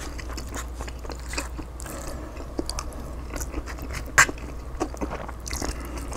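Close-miked chewing and mouth sounds of a man eating a chicken burrito bowl, with light clicks throughout and one sharper click about four seconds in, over a steady low hum.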